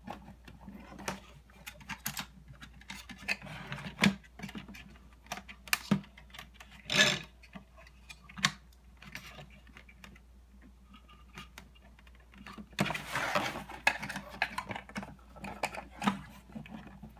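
Scattered plastic clicks and taps from a small screwdriver turning the feed gears of an opened 3D Systems Cube 3 filament cartridge, and from the cartridge being handled, as jammed filament is advanced by hand. There is a louder knock about seven seconds in, and a stretch of rustling scraping around thirteen seconds in.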